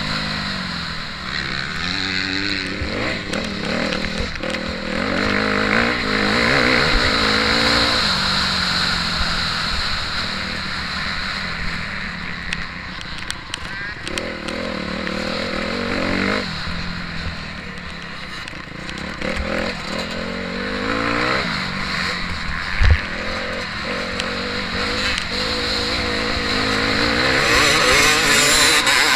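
Motocross bike engine revving hard and easing off again and again as the rider rides the track, heard from on the bike. A single loud thump about 23 seconds in.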